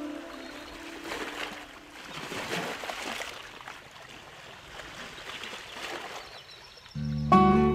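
Background relaxing instrumental music: a held note dies away in the first second, then a few seconds of soft rushing water sound like gentle surf or a stream, before the music comes back in loudly with struck notes and a low bass near the end.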